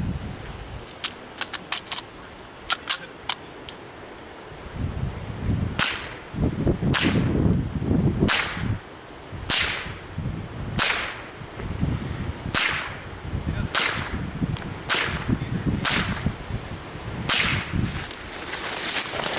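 .22 LR rifle shots: a quick run of about eight fainter sharp cracks, then about ten louder shots spaced roughly a second or so apart. A low rumbling noise comes and goes between the shots.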